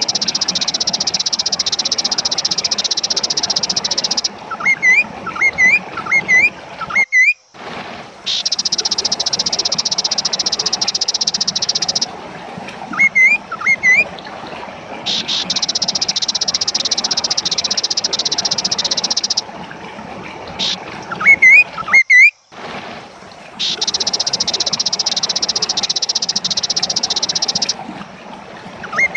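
Kaso-kaso bird song: long, harsh buzzing trills lasting several seconds alternate with clusters of short rising whistled notes. The recording drops out briefly twice, as at splice points in a looped track.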